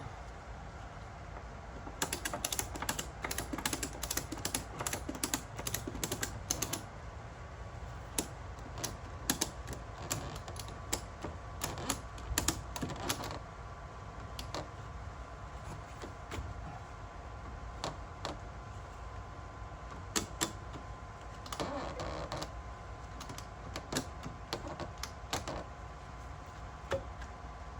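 Irregular clusters of sharp clicks and light knocks from parts and tools being handled as a jet pump is worked onto a shaft and bell housing, busiest in the first half and sparser later, over a faint steady hum.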